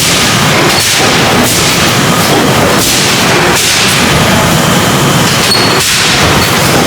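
Upset forging machine on an automated forging line striking hot metal, heavy blows repeating about every second over loud, continuous industrial noise.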